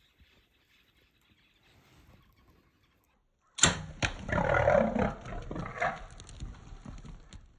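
A sudden sharp hit as an arrow strikes a warthog about three and a half seconds in, then the warthog's loud squealing grunts as it bolts, fading over the next few seconds.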